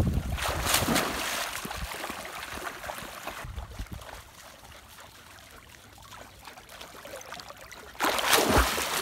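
A Doberman pinscher splashing in shallow water as it lunges at fish: a burst of splashing that dies away over the first few seconds, a quieter stretch of lapping water, then a sudden loud splash near the end.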